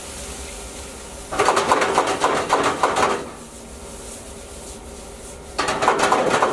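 Sliced fennel and cucumber rattling and scraping in a perforated metal grill pan as the pan is shaken and tossed over the grill. It comes in two bursts: a longer one about a second in and a shorter one near the end.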